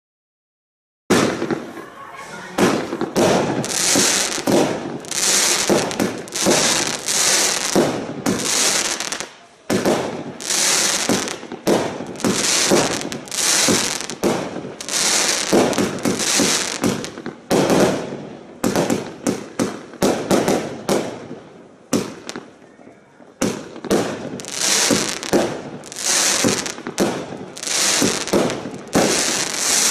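Benwell "Fire in the Hold" firework cake firing: a fast run of shots starting about a second in, roughly one or two a second, each with a short high hissing burst. The barrage dips briefly about ten seconds in and again just past twenty seconds.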